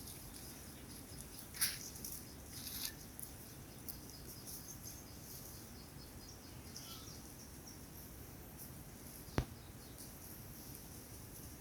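Faint outdoor ambience of high-pitched chirping, with a few short clicks and one sharp click about nine seconds in.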